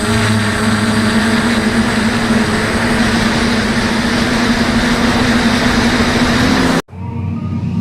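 DJI F450 quadcopter's motors and propellers running with a steady hum over a rush of air noise. The sound cuts off abruptly near the end and music begins.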